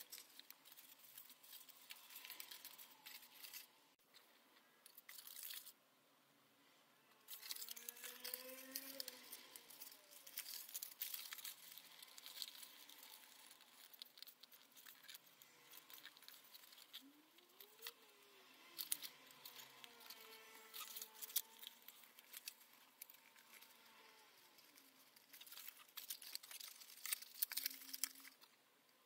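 Copy-paper parts of a papercraft model rustling and crinkling as they are handled and pressed together by hand, with many small irregular crackles and ticks and a short lull about six seconds in.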